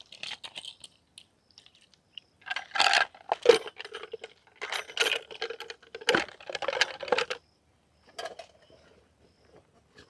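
Clicks, knocks and rustling as a plastic water bottle and small camping-kit items are handled and set down. The sounds come in irregular clusters, loudest about three seconds in and again from about five to seven seconds.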